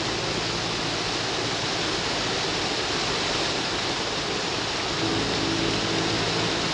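Forest stream pouring over a small, low cascade: a steady rush of falling water.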